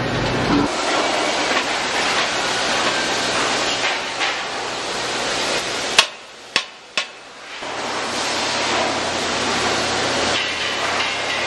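Steady, loud workshop machinery noise, broken a little past halfway by three sharp hammer taps on the steel dome of a gas cylinder being fitted onto its body. The steady noise returns with welding of the cylinder seam.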